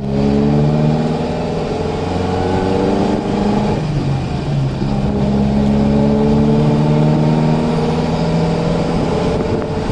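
A 1999 Toyota Tacoma's 2.7-litre 3RZ four-cylinder engine running at raised revs. It drops back briefly about four seconds in, then is brought up again and held steady.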